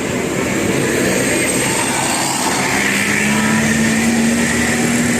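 Bus on the move in traffic: steady road and engine noise, with an engine note that comes in about halfway through and rises slightly in pitch.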